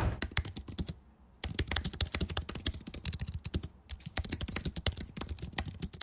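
Rapid typing on a computer keyboard: quick runs of key clicks, broken by a short pause about a second in and another a little past the middle.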